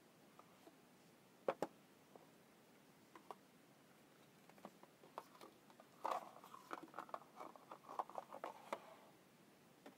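Faint handling of a phone's cardboard box and its card insert: two sharp taps about a second and a half in, a few light clicks, then about three seconds of rustling and scraping.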